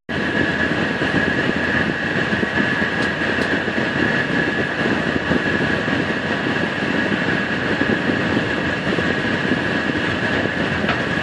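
Passenger train running steadily at speed, heard from inside the carriage: a constant rumble of wheels on the track with a steady high whine over it.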